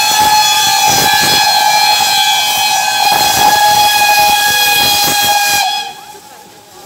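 Steam locomotive whistle blowing one long, steady note over hissing steam as the locomotives pass; the whistle cuts off suddenly near the end.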